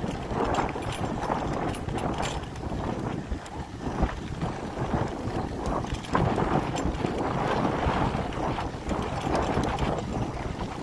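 Bicycle tyres rolling and crunching over loose dark sand and gravel, with wind buffeting the microphone and scattered small clicks and crackles throughout.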